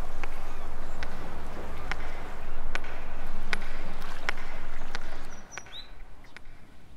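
Outdoor ambience: a steady rushing noise with scattered sharp clicks, which falls away about five seconds in, leaving a bird chirping a few times.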